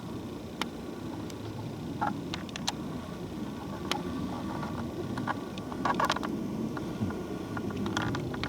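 Wind rumbling on the microphone, with scattered light clicks and crackles, bunched together about six seconds in.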